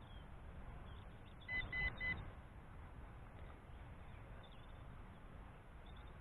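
The MJX Bugs 5W drone's radio controller gives three short, quick, high-pitched beeps about a second and a half in. It is the controller's warning beep, sounding along with its 'TX, no signal return' signal alert.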